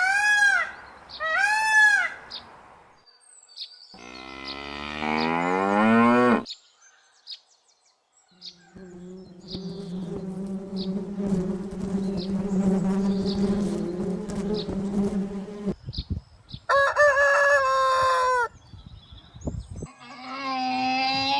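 A run of different animal sounds: a peacock's loud arched calls twice at the start, then a long rising call, about seven seconds of steady insect-like buzzing, and two more pitched animal calls near the end.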